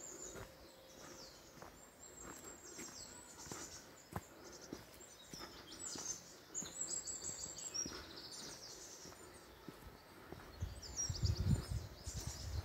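Woodland birds singing: repeated high, quickly falling song phrases, with the faint steps of someone walking on a dirt path. A low rumble rises briefly near the end.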